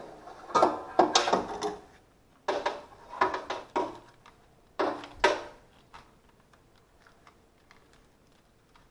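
Three bursts of clattering, ratcheting mechanical handling noise, as of tools and metal parts being worked, then quiet with a faint steady hum.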